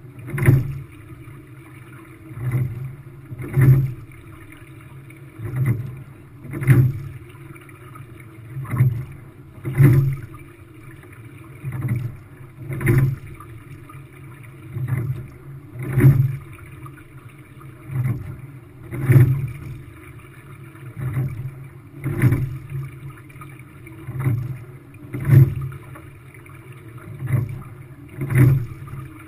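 Quad sculling shell being rowed at a steady, light pace: a pair of sharp knocks in each stroke, repeating about every three seconds, from the oars turning in their oarlocks at the catch and release, over a steady rush of water along the hull.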